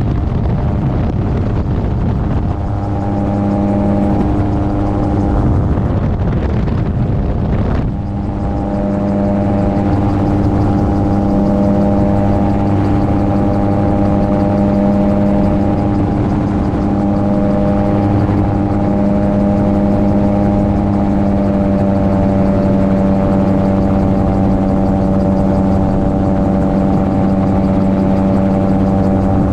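Gyroplane's engine and propeller running steadily at a constant pitch, with wind rushing over the microphone. About six seconds in, a gust of wind noise briefly drowns out the engine's tone before it comes back steady.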